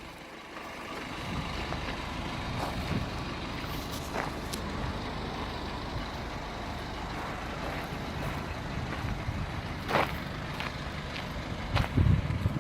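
A truck's engine running low and steady, with a few short knocks. The loudest knocks come near the end.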